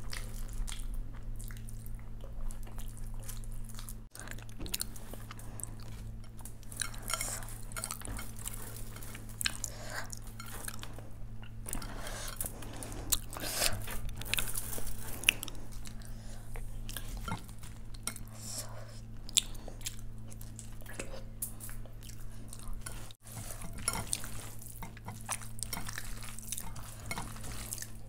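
Close-miked eating by hand: wet chewing and crunching of fried vegetables, with squishing as curd rice is mixed by hand, over a low steady hum.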